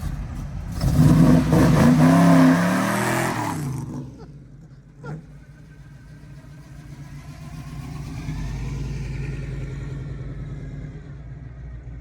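A car engine accelerating, loud with its pitch rising for about three seconds, then fading away. A low engine rumble follows and grows a little louder near the end.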